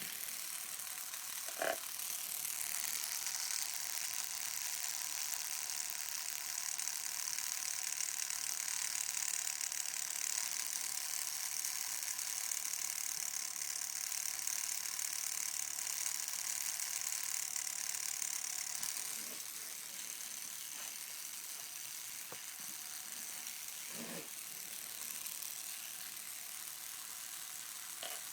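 Homemade battery-powered tattoo machine, a small motor driving a guitar-string needle, running steadily as a high-pitched mechanical buzz. It drops a little in level about two-thirds of the way through, on batteries the tattooist expects to need replacing soon.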